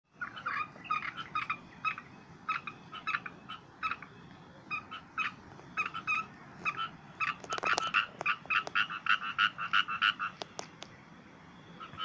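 Frogs calling: a run of short croaks, spaced out at first and quickening into a fast series about halfway through, with a few sharp clicks near the end.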